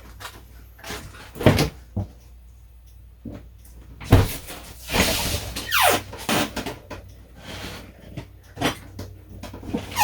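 Kitchen handling noises: a string of knocks and clatters like cupboard doors and utensils being moved, the loudest knock about four seconds in, with a longer scraping stretch around five to six seconds in.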